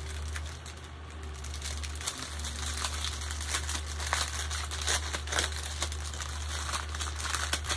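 Small plastic bags of diamond-painting drills crinkling and rustling as they are handled and pulled apart. The crackles grow busier after a few seconds.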